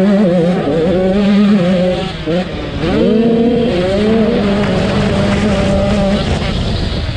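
85cc two-stroke motocross bike engine under hard throttle. It is held high, drops briefly about two seconds in, revs up sharply just before the three-second mark and holds there, then eases off into a rougher rushing noise near the end.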